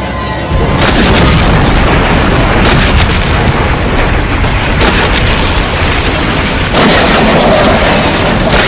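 Sound-effect collage of loud booms and heavy crashing rumble, with new impacts breaking in about half a second in, then near three, five and seven seconds.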